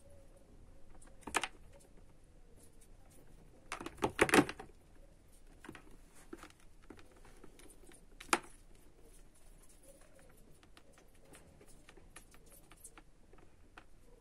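Light clicks and taps on a clear plastic tub as a hamster moves about in it, with a sharp knock about a second and a half in, a louder clatter of several knocks around four seconds, and one more knock near eight seconds.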